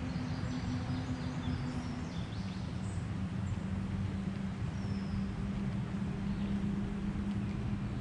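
Steady low engine drone with a held hum that drops a little in pitch about two seconds in, under faint high bird chirps.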